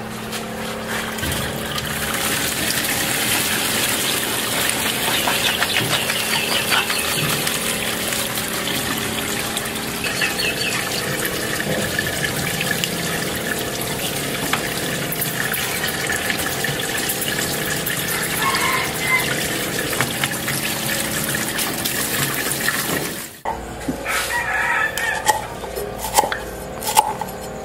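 Water pouring and splashing steadily as bats are rinsed by hand over leaves in a wicker basket, with chickens clucking and crowing in the background. About 23 seconds in the water stops, and a cleaver chops lemongrass on a wooden board in a series of sharp knocks.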